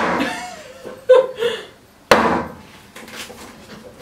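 Silky Nata hatchet chopping through a half-frozen chicken wing and bone into a wooden chopping board: one sharp chop about two seconds in, ringing briefly after. The start holds the fading ring of a chop made a moment before.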